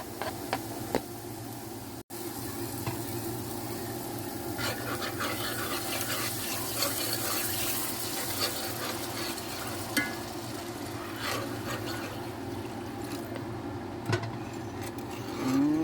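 Stirring in a pot of chicken, onions, garlic and curry powder cooking on the stove, with the spoon scraping and now and then clinking against the pot over a steady sizzle.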